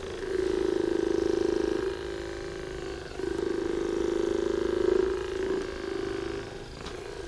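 Handheld electric massager buzzing against the lower back, a steady low hum made of rapid pulses. It grows louder for a second or two at a time, twice, and drops back in between.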